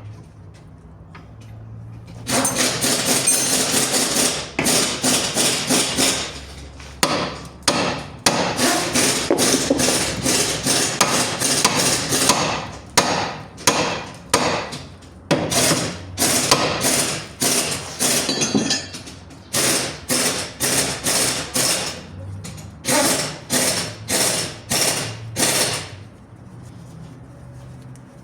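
Hammer blows on steel, starting about two seconds in: dense runs of fast strikes, then separate blows one to two a second, stopping shortly before the end. The hammering is knocking the old tie rod end free from the steering knuckle.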